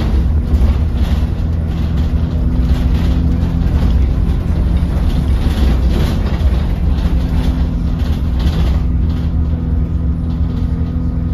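Diesel engine of an Alexander Dennis Enviro200 single-deck bus heard from inside the passenger saloon: a steady low drone with road and cabin noise over it.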